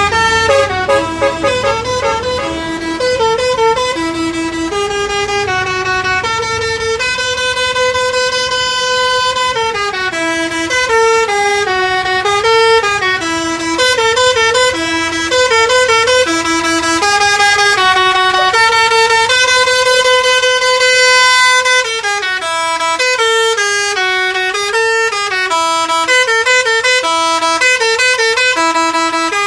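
Knock-off Basuri 'telolet' multi-tone bus air horn playing a tune: a string of horn notes stepping up and down in pitch. Some notes are held for a second or two and others switch back and forth quickly.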